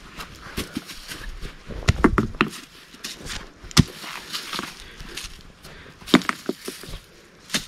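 Sandstone rocks of a campfire ring knocking and clacking against each other and the gravelly ground as the ring is taken apart by hand, with scuffing on dry earth between the knocks. Several separate knocks, the sharpest a little under four seconds in and again about six seconds in.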